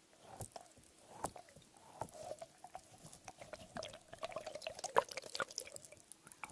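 A squishy squeeze toy filled with water and beads being squeezed by hand, giving wet, liquid squelches with many small clicks, the sharpest about five seconds in.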